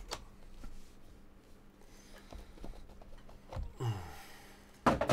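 Hands handling a Panini Flawless cardboard card box: small clicks and rustles, then the lid sliding off the box with a brief falling scrape about four seconds in, and a sharp knock near the end.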